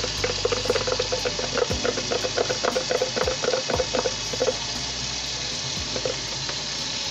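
Hot water running from a kitchen tap into a stainless steel sink and a plastic cup, while flour and water are stirred in the cup with quick, rapid clicks of the utensil against its side. The clicking thins out after about four and a half seconds, leaving the water running steadily. This is flour being mixed into hot water to make a smooth, lump-free gravy thickener.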